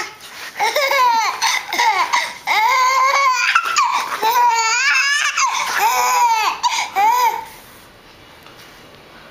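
Six-month-old baby laughing in a string of high-pitched squealing giggles, one burst after another, that stops about seven seconds in.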